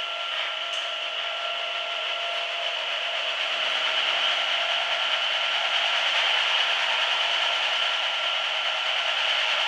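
Hanta Duster 300 rug-dusting machine running with a rug turning on its drum: a steady rushing noise over a steady hum, growing a little louder about three seconds in.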